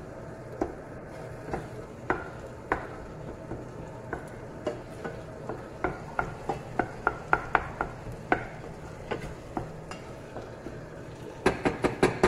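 Wooden spoon stirring diced vegetables in a stainless steel saucepan, tapping and scraping against the pan, over a light sizzle of the food cooking. The taps come irregularly, with a quick run of them around the middle and a louder flurry near the end.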